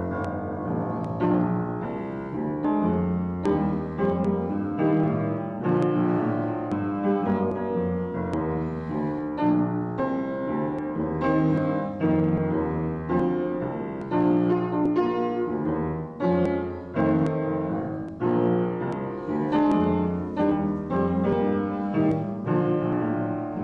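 Solo piano playing a slow, classical-style piece, with notes and chords struck every second or so and left to ring.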